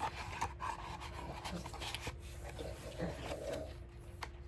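A dog licking and working its mouth over its paw in quick, irregular wet rasps and smacks, licking off the taste of the roast beef it held with that paw.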